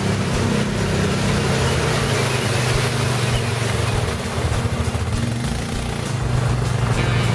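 Quad bike (ATV) engine running as it drives through deep water, with splashing loudest about two to four seconds in as it passes. The sound eases off around five seconds in, then rises again near the end as the next quad comes through.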